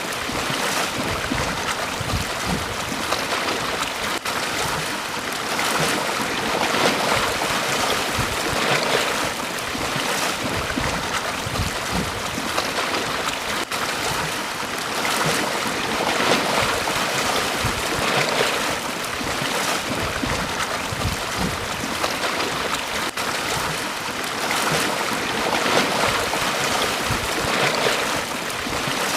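Sea waves breaking and washing up a beach: a continuous rush of surf that swells again every few seconds.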